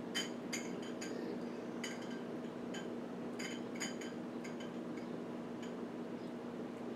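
Light clicks and clinks against a bowl as fish fillets are worked by hand through flour and egg, a dozen or so irregular taps, thicker in the first few seconds and sparser after. A steady low hum runs underneath.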